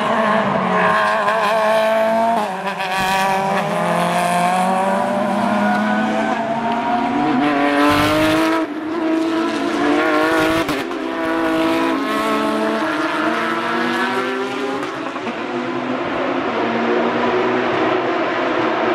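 Race car engines at full throttle, passing one after another, each climbing in pitch through the revs and dropping back at the gear changes. Two sharp cracks come about eight seconds in and again two seconds later.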